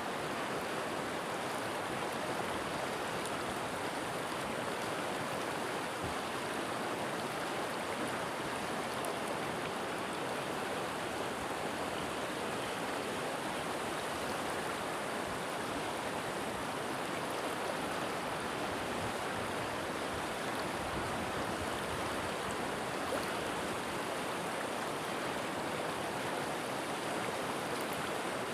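River water flowing over rocks, a steady, even rush.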